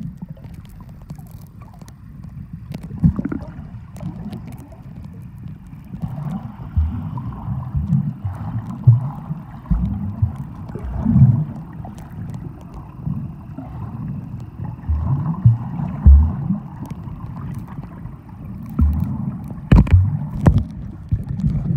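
Muffled underwater sound heard through a submerged phone's microphone: irregular low rumbling and gurgling as water moves around it, with a few sharp knocks, one about three seconds in and a pair near the end.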